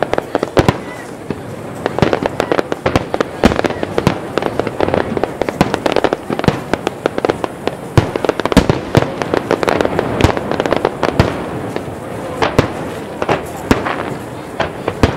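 Fireworks display in full barrage: aerial shells and shells bursting on the sea surface, giving a rapid, continuous run of sharp bangs, several a second and overlapping.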